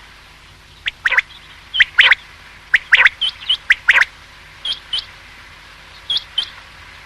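Common quail calling: short, sharp, high notes in quick pairs and triplets, repeated about a dozen times. The calls are loudest in the first four seconds and quieter after that.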